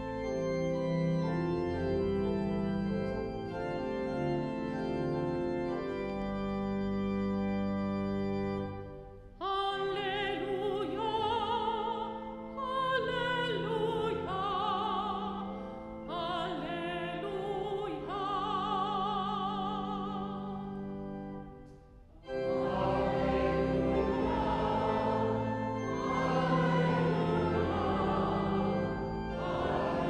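Organ playing a short introduction in held chords, then about nine seconds in a solo female cantor sings over it in a wavering, vibrato voice; a little past twenty seconds fuller singing with the organ takes over, as the Gospel acclamation is sung.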